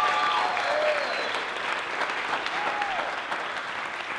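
A roomful of people clapping, with a few voices cheering and calling out over the applause. The clapping eases off a little toward the end.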